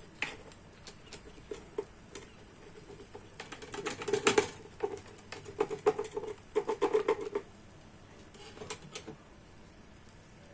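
Pizza cutter wheel rolling through a waffle and scraping across a metal pan, a fast run of clicks and scrapes, densest in the middle, with a few scattered ticks before and after.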